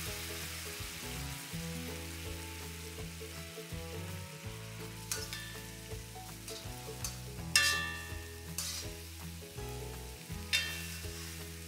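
Canned anchovy sambal sizzling in a metal wok over a gas flame while a slotted metal spatula stirs it, with several ringing clanks of the spatula striking the wok, the loudest about two-thirds of the way through.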